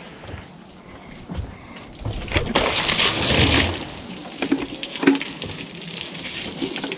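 Water dumped out of a bucket onto a wooden deck, gushing and splashing on the boards. The main gush comes about two and a half seconds in and lasts about a second, followed by smaller splashes and a few knocks.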